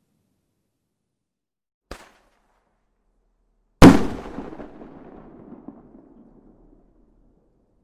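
Fireworks: a faint sharp pop about two seconds in, then a loud bang just before the middle that rumbles away over about three seconds.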